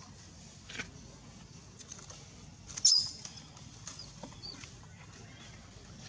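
Dry leaves crackling and rustling as long-tailed macaques shift about on the ground, in scattered small clicks. About three seconds in comes a brief high-pitched squeak with a sharp crackle, the loudest moment.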